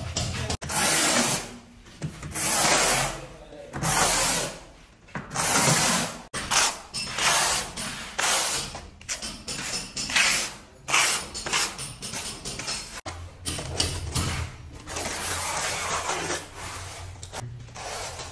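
Notched steel trowel scraping tile adhesive, combing it into ridges on the back of a large porcelain tile and on the concrete floor, in repeated rough strokes with short pauses between them.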